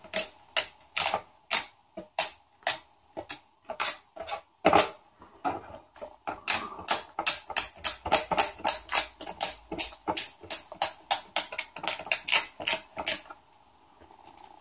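Dust-removal sticker dabbed again and again on a phone's glass screen: a run of sharp sticky taps, about two a second, quickening to three or four a second midway and stopping about a second before the end.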